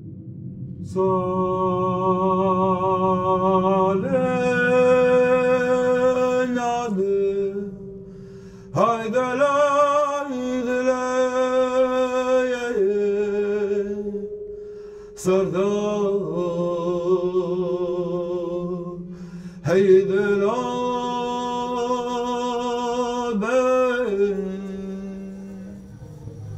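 Music: a voice chanting long held notes with vibrato, in four phrases separated by short pauses, over a steady low drone.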